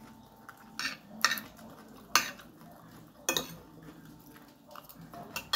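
A metal fork clinking and scraping against a glass bowl while scooping up rice, with about five sharp clinks spread through.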